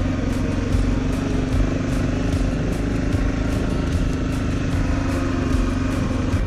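Single-cylinder dual-sport motorcycle engine running at a steady speed while riding, with a constant engine tone.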